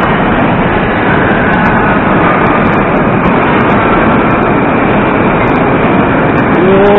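Vintage Am-type Moscow Metro train running past along the platform: a loud, steady rumble of wheels and traction motors, with a faint whine now and then.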